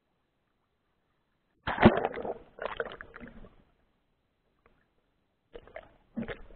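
Muffled water sloshing and knocks heard through an action camera's waterproof housing held underwater, in two bursts: a longer one about two seconds in and a shorter pair near the end.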